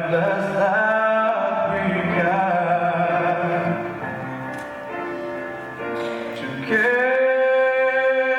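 Music with long held notes, sung or sustained. It drops back for a couple of seconds midway, then a loud held chord comes in about two-thirds of the way through.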